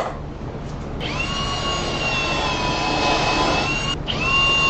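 Cordless drill boring a hole through the wooden cabinet: a steady motor whine starts about a second in, cuts out briefly near the end and starts again. A sharp click at the very start.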